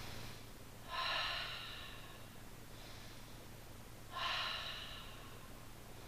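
A woman taking slow, deliberate deep breaths as part of a breathing exercise: two audible breaths about three seconds apart, each starting suddenly and fading over most of a second.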